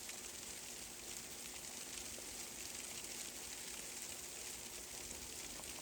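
Sleet falling: a faint, steady hiss made of many fine ticks of ice pellets.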